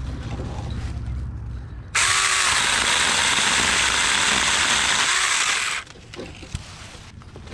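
Saker mini electric chainsaw running and cutting through a tree branch for about four seconds, starting abruptly about two seconds in and cutting off suddenly. A low hum comes before it.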